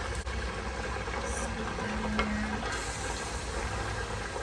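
Chopped onions and coriander stems sizzling in a little olive oil in a pot, a steady frying hiss, with a small click about two seconds in.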